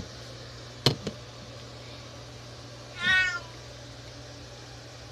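A domestic cat meowing once, a short call about three seconds in, protesting at being bathed. A sharp knock comes about a second in.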